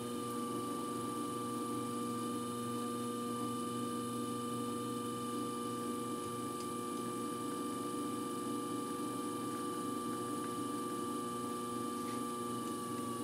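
Electric potter's wheel running: a steady motor hum with a higher whine that dips slightly in pitch near the end.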